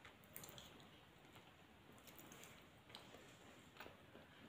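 Near silence broken by a few faint, scattered clicks and smacks of someone chewing food quietly.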